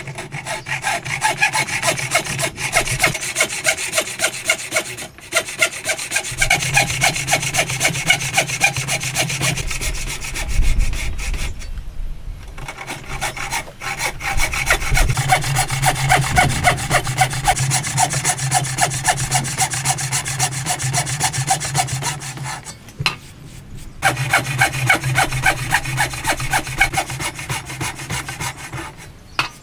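Wooden frame saw cutting a hardwood block by hand, fast even back-and-forth strokes rasping through the wood with a few short breaks. The strokes are sawing kerfs along marked lines for a joint.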